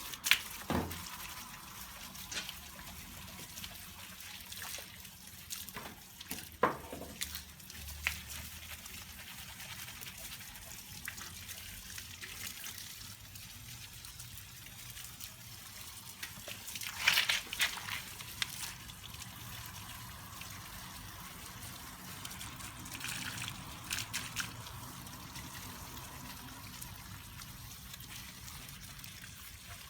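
Water trickling and dripping steadily, with a few sharp clicks and knocks and a louder rush of noise about seventeen seconds in.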